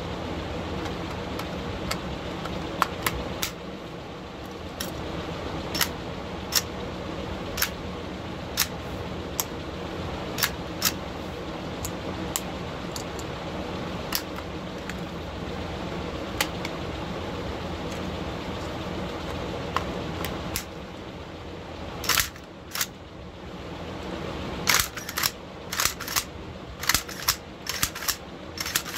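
Metal clicks and clacks of an AK-74 rifle's parts being handled and fitted together, spaced out at first, then coming in a quicker, louder run of clicks in the last several seconds, over a steady background noise.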